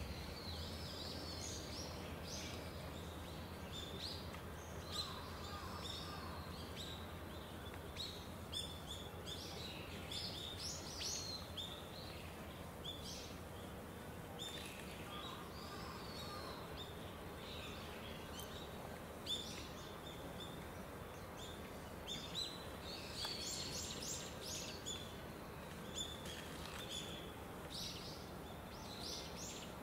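Small birds chirping in short, repeated calls, over a low steady background hum.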